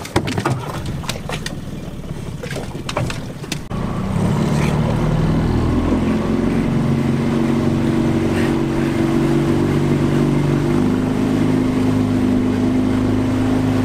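Knocks and clatter for the first few seconds, then an outboard motor on a small fishing boat running under way. Its pitch steps up once and then holds steady for the rest of the run.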